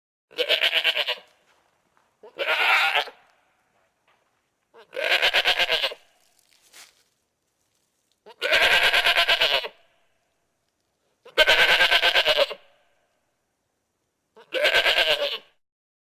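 Goat bleating: six separate wavering bleats of about a second each, a couple of seconds apart, with silence between them.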